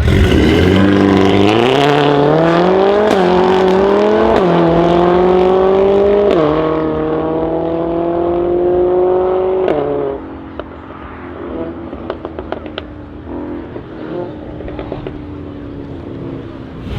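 Mercedes-AMG A45 S turbocharged four-cylinder through a Milltek OPF-delete straight-pipe exhaust, accelerating hard: the pitch climbs and drops back at each of several quick upshifts. About ten seconds in it lifts off and the sound falls away, with a scatter of exhaust crackles and pops on the overrun.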